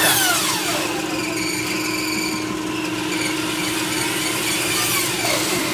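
Electric meat band saw running with a steady hum while its blade cuts lengthwise through a beef foot. The cutting noise is high-pitched and hissing and rises and falls as the foot is fed through. The bone is very hard to cut.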